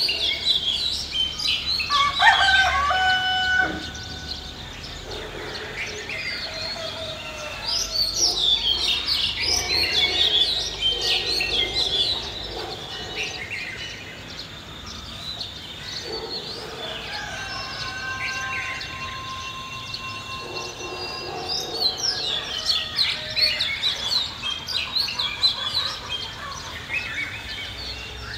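Rural village ambience: a rooster crows about two seconds in, over continual chirping of small birds.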